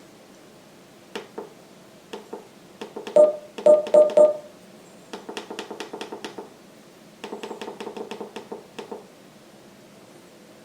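eMeet Luna Bluetooth speakerphone playing its electronic beep tones as its buttons are pressed: a few single short beeps, then four louder tones, then two rapid runs of short beeps in quick succession.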